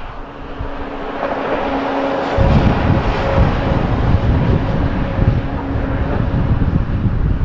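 Boeing 737-800 airliner's jet engines running as it rolls out along the runway after touchdown, a steady rush with a held hum, with a low rumble that grows louder about two and a half seconds in.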